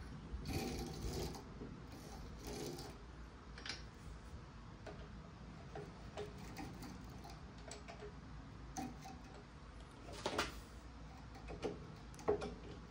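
Quiet, irregular metallic clicks and short scrapes from a drill-press vise being worked by its ball handle, with a rusty steel piece under a wire cup brush, over a low steady hum. The louder clicks come about half a second in, near ten seconds and just before the end.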